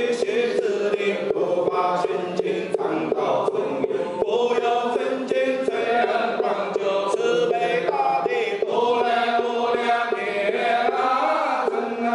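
Zhengyi Taoist priests chanting a liturgical invocation in unison to a slow melody, kept in time by a wooden fish struck at a steady beat of about three strokes a second.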